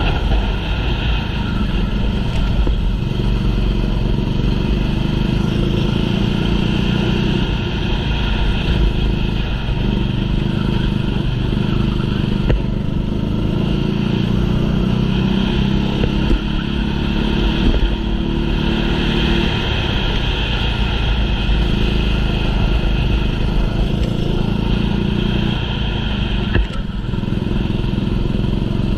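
Small racing engine running hard throughout, its pitch rising and falling as the vehicle accelerates and slows through the course.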